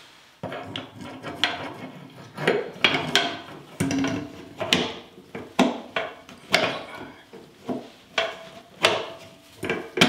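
Tile-in floor vent insert being fitted into its frame: a series of irregular hard clicks and knocks with some scraping as its tabs are pushed down and slid into place.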